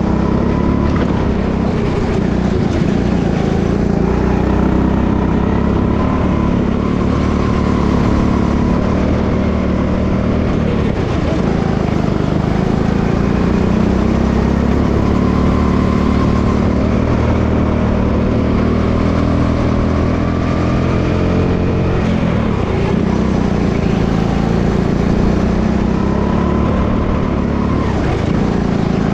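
Go-kart engine heard from on board while racing, its pitch rising and falling as the driver comes on and off the throttle through the corners.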